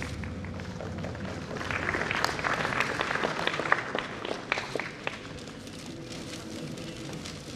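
Audience applauding: the clapping swells about a second and a half in and thins to a few scattered claps about five seconds in.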